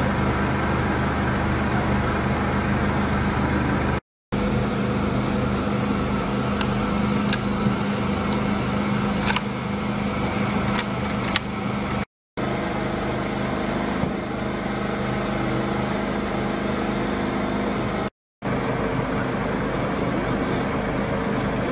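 A vehicle engine idling steadily, with a few faint clicks around the middle. The sound drops out briefly three times.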